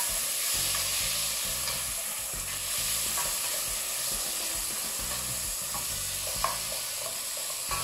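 Frozen shell-on prawns and diced potato sizzling in hot oil in a stainless steel pot as they brown, stirred with a spoon that scrapes and knocks against the pot a few times, one knock standing out about six and a half seconds in.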